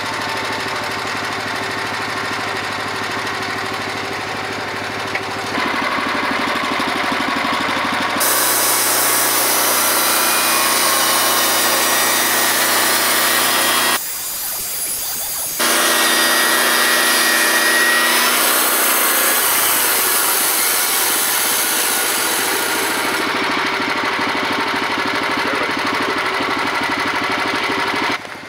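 Norwood LumberMate portable bandsaw mill's small gasoline engine running steadily. From about a third of the way in until past the two-thirds mark, the band blade adds a loud high hiss as it saws through a cedar log, broken by a short dip just before the middle. Afterwards the engine runs on without the cutting hiss.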